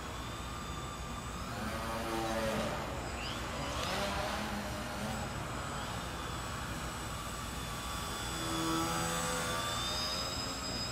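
Small electric RC foam aerobatic plane (a scratch-built EPP Yak) whining in flight from its motor and propeller, the pitch gliding up and down with the throttle and swelling louder several times as it manoeuvres.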